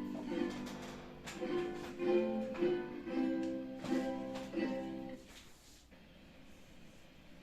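A plucked string instrument of the guitar family playing chords and notes, which stops about five seconds in and leaves faint room noise.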